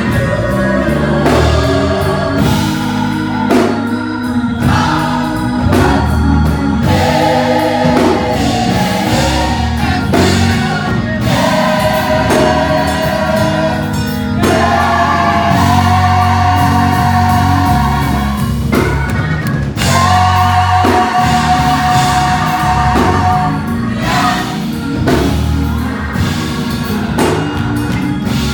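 Gospel choir singing with a band, with held sung notes over bass and drums.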